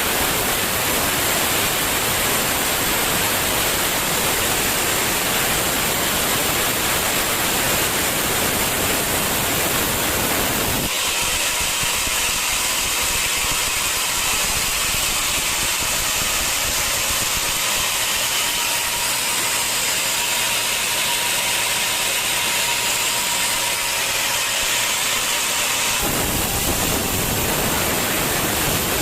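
Sawmill machinery running with a loud, steady noise. About eleven seconds in, the sound switches abruptly to a thinner, higher hiss with a faint steady whine, and near the end it switches just as suddenly back to the fuller noise.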